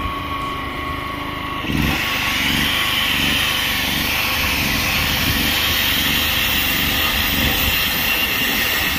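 Angle grinder running, at first with its disc spinning free. About two seconds in it gets louder as the cutting disc bites into a rusty metal pipe, and it keeps grinding steadily through the cut.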